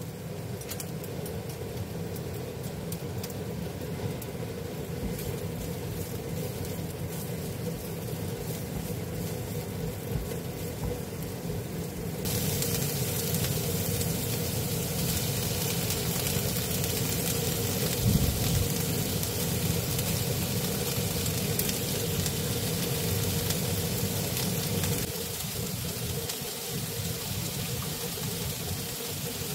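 Chopped onion sizzling as it fries in a nonstick pan, over a steady low hum. The sizzle turns louder and brighter about twelve seconds in.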